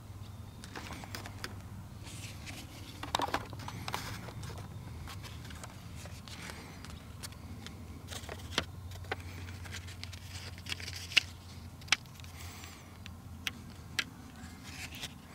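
Handling noise from a handheld camera and a pair of cardboard eclipse glasses: scattered rustles and several sharp clicks over a steady low hum. The loudest clicks come about eleven and twelve seconds in, and again near fourteen seconds.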